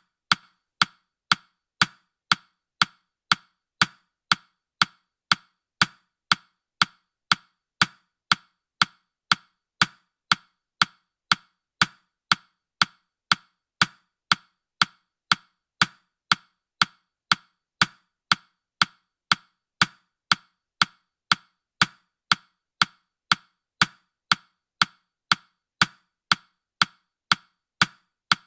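Countdown timer's ticking sound effect: short, sharp clicks in a steady even rhythm, about two a second.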